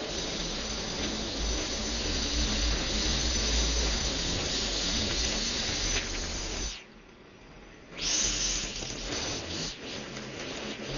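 Petrol string trimmer running as a steady, loud hiss, dropping away abruptly for about a second about two-thirds of the way through before coming back.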